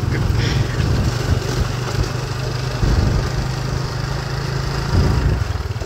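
Small motorcycle engines running steadily at riding speed, with wind and road noise.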